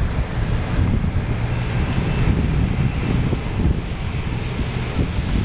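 Snowstorm wind buffeting the microphone: a steady, heavy low rumble that flickers constantly, with faint thin high whines in the middle.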